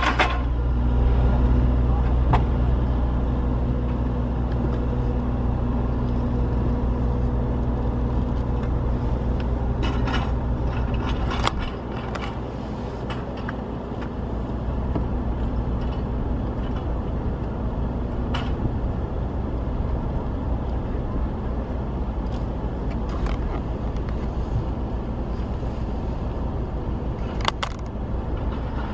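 A car running, heard as a steady low rumble of engine and road noise with a few light clicks and knocks. A faint hum in it drops away partway through.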